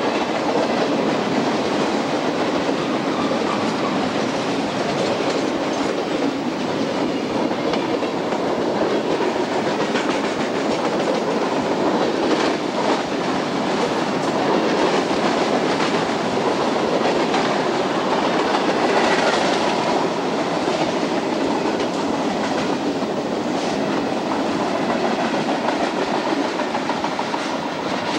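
Cars of a mixed freight train (boxcars, covered hoppers, tank cars) rolling past: a steady rumble of steel wheels on rail, with repeated clicks as the wheels cross rail joints.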